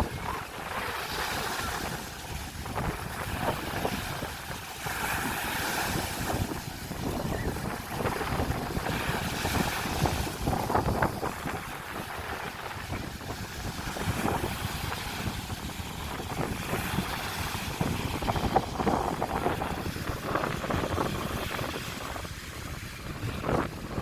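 Strong wind buffeting the microphone, with sea waves breaking and washing on the shore; the rushing noise swells and eases unevenly in gusts.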